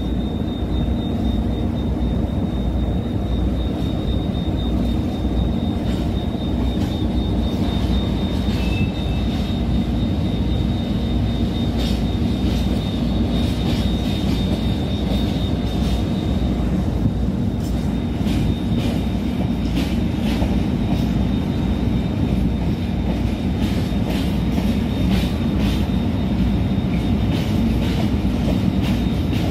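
Container freight train reversing slowly, its wagons giving a steady low rolling noise on the rails. A thin steady high whine runs under it, and faint scattered clicks come more often in the second half.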